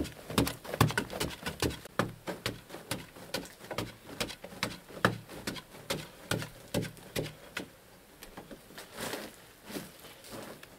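Short-handled digging tool chopping into a hard-packed earth wall, sharp strikes about two a second, giving way near the end to softer scraping as loose soil is gathered by hand.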